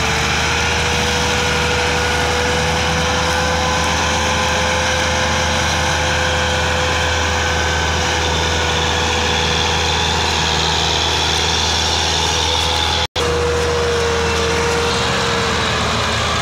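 Tractor diesel engine running hard and steady while hauling a heavily overloaded sugarcane trolley, so laboured that the front wheels lift. The sound cuts out for an instant about 13 seconds in.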